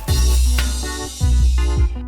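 Electronic background music with heavy deep bass drum hits and short synth notes in a steady beat.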